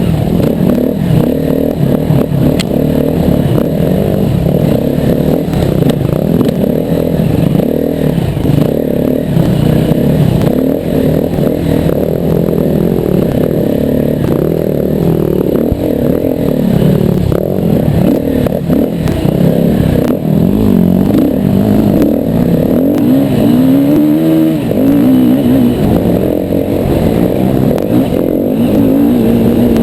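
Yamaha WR250R's single-cylinder four-stroke engine being ridden hard off-road, revving up and down continuously as the throttle opens and closes, its pitch rising and falling.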